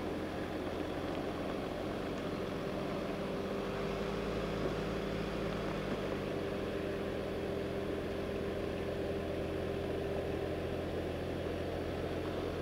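Mercedes-Benz G 400 d's 2.9-litre inline-six turbo diesel running steadily at low revs as the G-Class crawls slowly over uneven off-road ground.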